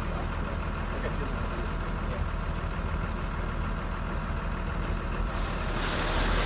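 Compact diesel machine engine idling steadily. About five seconds in, a loud hiss rises in over the top.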